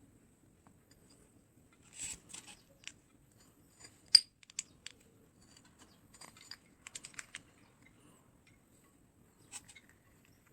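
Scattered sharp clicks and short scrapes of small hard parts being handled, with no motor running; the loudest click comes a little after four seconds in.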